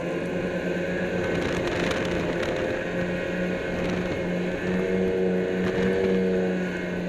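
Snowmobile engine running steadily at speed, a constant drone under a rushing noise of wind and snow. It gets a little louder for a moment about five to six seconds in.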